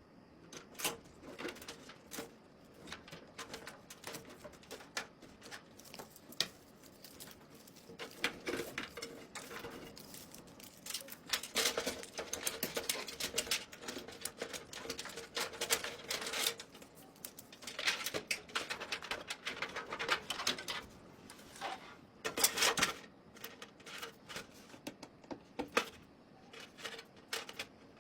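Rapid, irregular clicking and clattering of small hard parts being handled, in bursts with short pauses between them.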